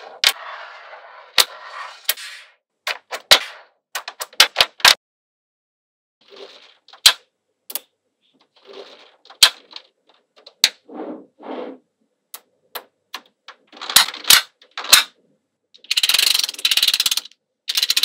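Small magnetic metal balls clicking sharply as strips of them are snapped into place against one another, at irregular intervals, with short stretches of dense rattling as clusters of balls roll and shift, the longest near the start and near the end.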